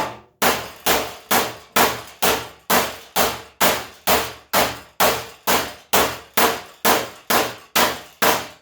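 A body hammer tapping steadily on the steel front fender of a 1978 Ford F100, about twenty strikes at roughly two a second, each with a short metallic ring. The tapping works a low spot and small dent back out of the sheet metal.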